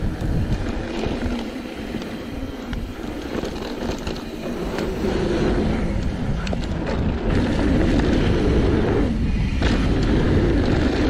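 Wind buffeting the microphone while a mountain bike rolls down a dirt trail, its tyres rumbling, with scattered clicks and rattles from the bike. The rush gets louder about halfway through.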